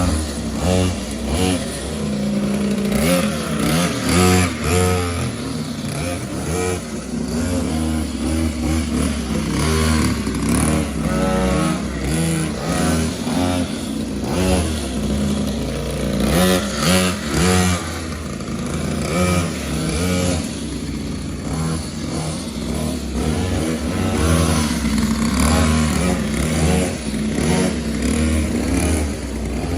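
Mini motorbike engines revving, the pitch rising and falling again and again in short bursts of throttle.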